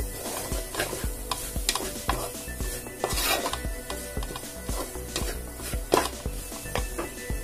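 A spoon scraping and knocking against the sides and bottom of a metal pot as onions and ground masala are stirred and sautéed over a low flame, with a soft sizzle. The scrapes and knocks come irregularly, several a second, and the loudest is about six seconds in.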